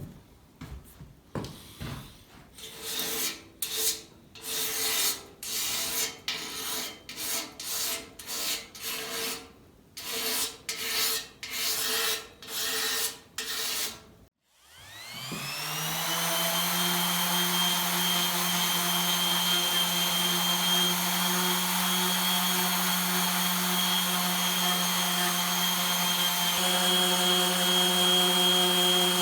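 Rhythmic hand rubbing strokes on a hard surface, about one and a half a second. After a short gap, an electric motor spins up with a rising whine and then runs steadily.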